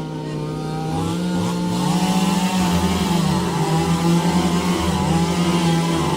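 Two-stroke chainsaw running at high speed, cutting up a fallen pine tree, its pitch sagging briefly a few times.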